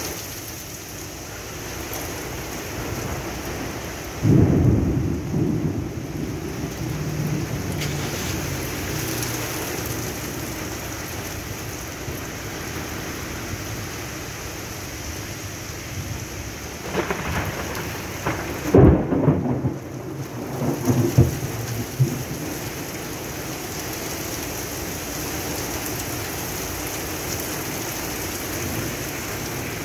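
Heavy rain falling steadily, with two peals of thunder: a low rumble about four seconds in, and later a louder one that breaks into a sharp crack and rolls on in rumbles for several seconds.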